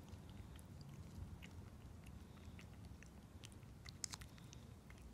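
Cat licking and chewing a treat from a tube: faint, scattered wet clicks of its mouth, with a sharper click about four seconds in.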